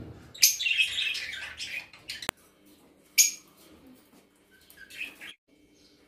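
Birds calling in a few loud, shrill bursts, the longest lasting over a second, with a single sharp click about two seconds in.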